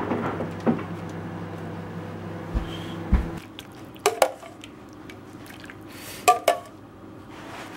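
Soup being ladled from a pot into a ceramic mug: wet pouring and dripping, with a few sharp clinks of the ladle against the dishes, two close pairs in the second half. A steady low electric hum runs under the first three seconds and then stops.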